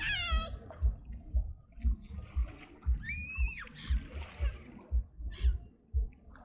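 River water splashing and lapping, with low thumps about twice a second. A single drawn-out animal cry rises, holds and falls about three seconds in.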